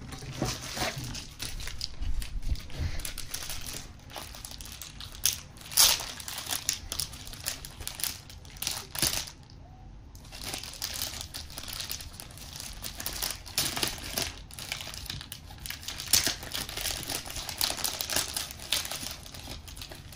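Thin plastic card sleeves crinkling and rustling as trading cards are handled and slid into them, with irregular sharp crackles.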